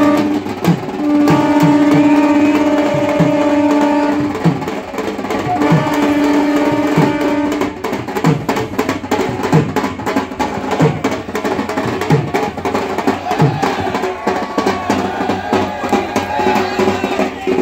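Music with drums beating, and a long steady held note that sounds three times over the first eight seconds before the drums carry on alone.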